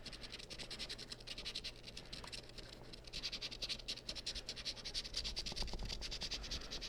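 Lottery scratch-off ticket being scratched: a long run of quick, fine rasping strokes that eases off about two seconds in and then picks up again.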